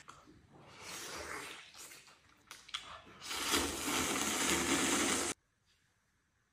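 A person slurping noodles in broth from a bowl: softer slurps in the first couple of seconds, then one long, loud slurp lasting about two seconds that cuts off suddenly.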